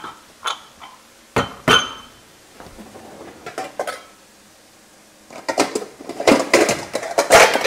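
A few sharp knocks, then metal mixing bowls clattering and clinking against each other as they are taken out of a kitchen drawer, the clatter getting busier and louder from about two thirds of the way through.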